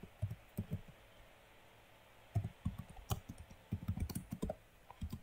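Typing on a computer keyboard: a few keystrokes, a pause of about a second and a half, then a quicker run of keystrokes as a name is typed in.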